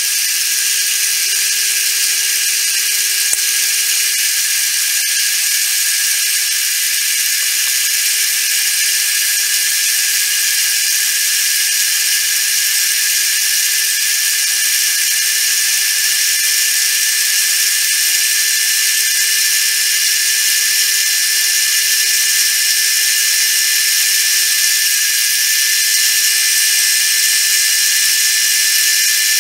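Milling machine spindle running steadily with a constant whine while a twist drill bores the tapping hole for an M6 thread in a small T-nut held in the vise.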